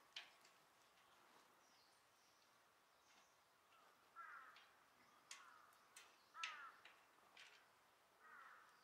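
Faint short animal calls, four or five of them, spaced a second or two apart, with a few sharp clicks between them.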